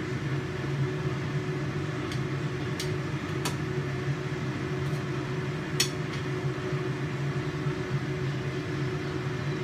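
Kitchen range hood fan running with a steady hum. Over it come four or five sharp clicks of metal tongs against the frying pan and plate, the loudest about six seconds in.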